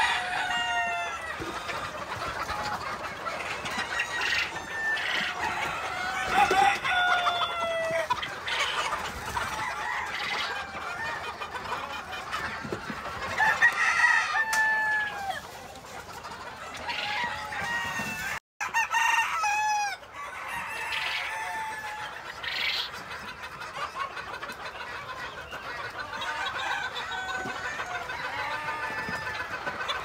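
A flock of chickens clucking, with roosters crowing again and again over the top.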